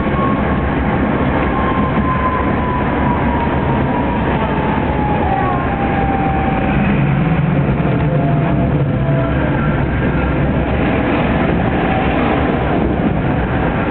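Tram running along its track, heard from on board: a steady rattling rumble of wheels and car body, with a thin whine that falls slowly in pitch over most of the stretch.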